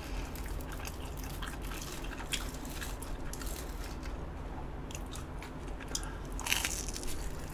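Close-miked chewing of a crispy batter-fried hot dog: small crunches and wet mouth clicks, with a louder crunching stretch near the end.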